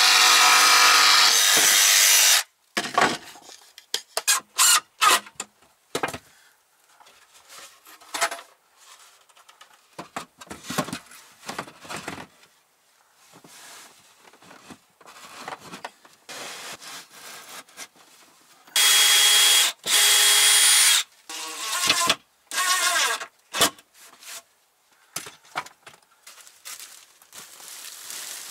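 Jigsaw cutting plywood, a loud steady buzz that stops about two seconds in, followed by scattered knocks and clatters of boards and tools being handled. A second burst of sawing of about two seconds comes about two-thirds of the way through.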